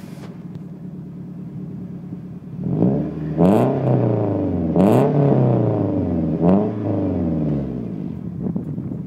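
Scion tC's four-cylinder engine running through a newly fitted aftermarket Raceland exhaust. It idles steadily, is blipped three times starting about three seconds in, each rev rising and falling, and settles back to idle near the end.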